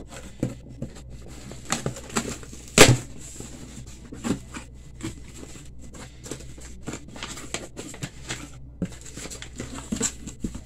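Small cardboard shipping box being handled and opened by hand: scattered knocks, taps and scrapes of the cardboard, with one loud knock about three seconds in.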